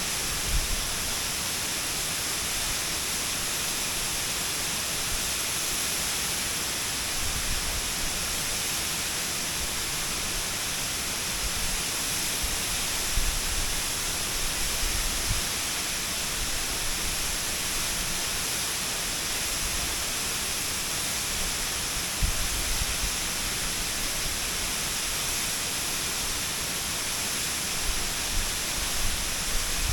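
Waterfall's steady, unbroken rush of falling water, with a few brief low bumps partway through and near the end.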